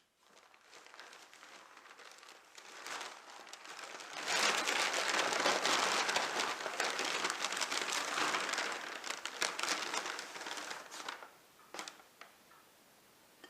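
Packing wrapping crinkling and rustling as it is unwrapped and crumpled by hand, loudest from about four seconds in until about eleven seconds, then a few scattered handling clicks.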